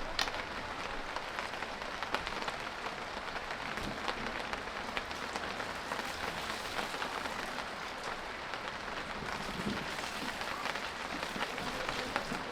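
Steady rain falling, a dense even spatter of many small drops.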